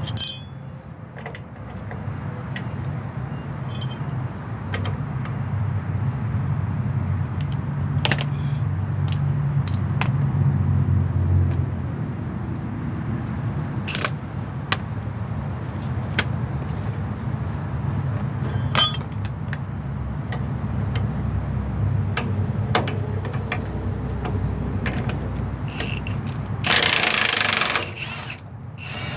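Hand tools clinking and tapping on metal while a driveshaft is unbolted, with scattered sharp clicks over a steady low hum. Near the end comes a loud hissing burst lasting about a second.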